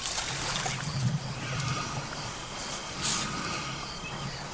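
Elephants rumbling low, strongest in the first two seconds, with a short hiss about three seconds in.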